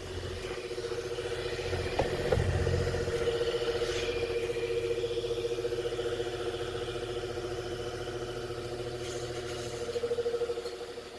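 GOAR V60 electric fan running: a steady motor hum whose loudness wavers rapidly and evenly. There is a short knock about two seconds in.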